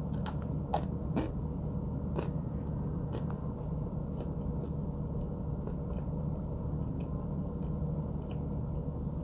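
Mouth chewing and crunching a chunk of packed white powder: scattered soft crisp crunches, thicker in the first few seconds and thinning out after, over a steady background hum.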